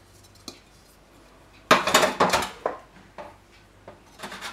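Sugar tipped from a plastic bowl into a plastic measuring jug, the bowl knocking against the jug: a cluster of knocks and rustling about two seconds in, then a few lighter clicks.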